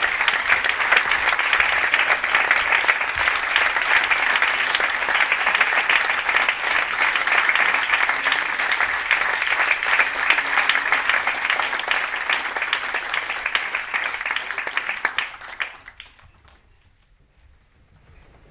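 Audience and performers applauding, a dense steady clapping that dies away quickly about fifteen seconds in.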